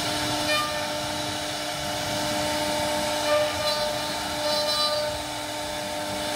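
CNC router spindle running with a small carving bit cutting into a wooden panel: a steady whine of several held tones over the noise of the cut, with small swells in level as the bit works.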